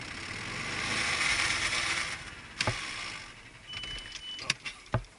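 Golf cart riding over the course: a rushing hiss that swells and then fades over the first couple of seconds, with a few sharp knocks and rattles from the cart and a short, steady high whine about four seconds in.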